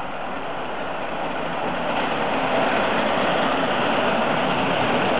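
LNER A4 class three-cylinder Pacific steam locomotive approaching at speed through a station: a rushing running noise that grows louder over the first two seconds as it nears, then holds steady.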